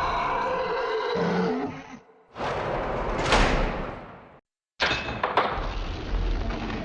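Haunted-house horror sound effects: a low moaning that glides in pitch fades out, a whooshing swell rises and dies away, then after a moment of silence a new effect starts abruptly with a couple of sharp knocks over a low rumble.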